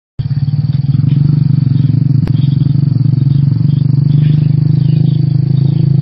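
A steady, loud low drone with a fast, even pulse, like an engine running. There is a single sharp click a little after two seconds in.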